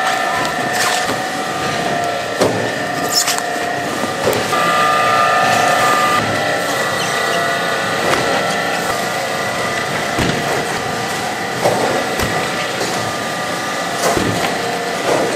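Cabbage-processing line running steadily: a conveyor belt and cabbage-cutting machine with a constant whine of several tones, broken by scattered knocks and thuds as napa cabbages are handled and fed through.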